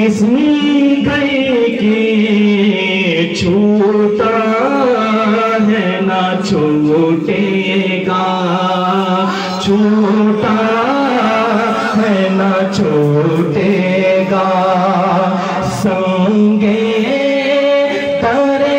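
A man singing an Urdu naat unaccompanied into a microphone over a PA system, drawing out long, wavering held notes in a devotional melody.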